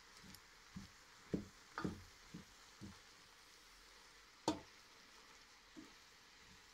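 Wooden spoon stirring spinach leaves in a stainless steel pot, with soft, uneven knocks of the spoon against the pot and one sharper knock about four and a half seconds in, over a faint sizzle of the spinach sautéing.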